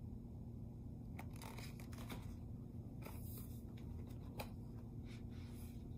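Faint rustling and soft taps of a paperback book being handled, a few short sounds scattered over a steady low room hum.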